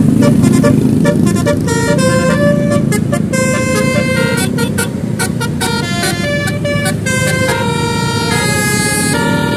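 Multi-tone basuri (telolet) musical horn playing a tune, its notes held and changing every fraction of a second, over a steady low rumble of the vehicle.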